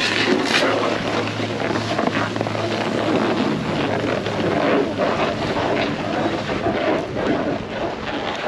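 Gusty wind buffeting an action-camera microphone, a steady rushing noise.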